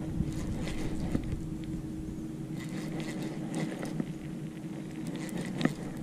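Baitcasting reel being cranked against a bent rod, reeling in a hooked catfish: a scratchy winding sound with a few sharp clicks, over a steady low hum.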